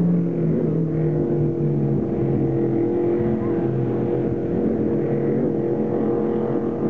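Offshore racing powerboat engines running at speed as a race boat passes close by, the engine note dropping in pitch during the first couple of seconds and then holding steady.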